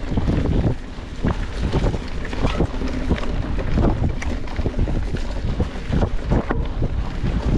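Wind buffeting the microphone of a camera on a moving mountain bike, with a steady low rumble and frequent irregular knocks and rattles as the bike rides over rough trail.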